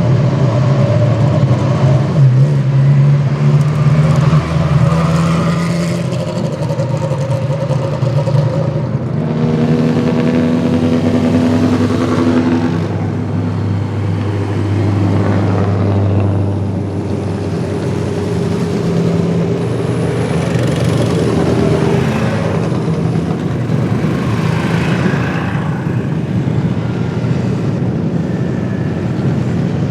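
Vintage race car engines running at low speed, several in turn, their pitch rising and falling as they move off or pass by.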